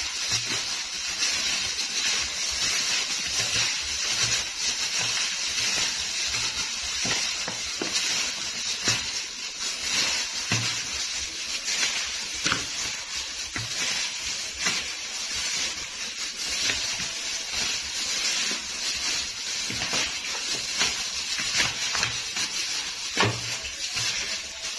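A thin plastic glove crinkling and rustling as a hand kneads raw pork ribs and garlic in a plastic bowl, with occasional knocks of the meat against the bowl.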